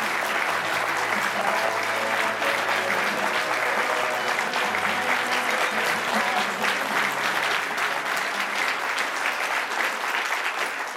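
Audience applauding, a dense, even clapping from many hands.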